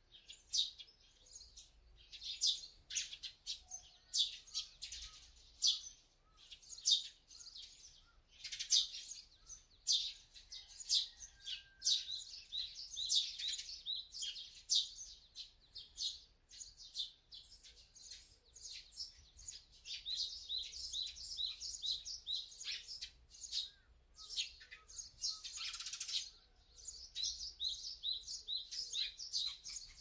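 Small wild birds chirping and calling, with many short high notes overlapping and several runs of quick, evenly repeated notes.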